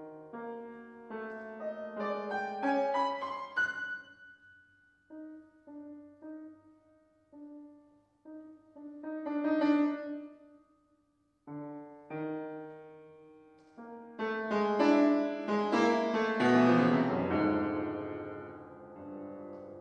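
Grand piano playing contemporary concert music: quick rising runs at the start, then sparse single notes with a loud chord about halfway through, then a loud, dense flurry of notes building toward the end.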